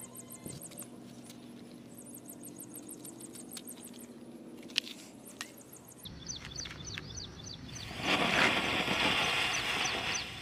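Birds chirping in quick repeated series over a low steady hum; about eight seconds in, a lit smoke bomb starts hissing loudly as it ignites and sprays sparks.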